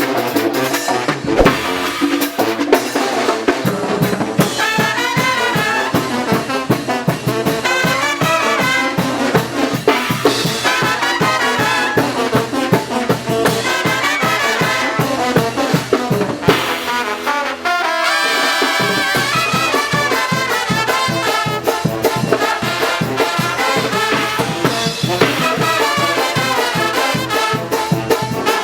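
Oaxacan brass band playing a muerteada carnival tune: trumpets and trombones over a quick, steady drum beat. Around seventeen seconds in the drums drop out briefly while the brass holds a chord, then the beat comes back.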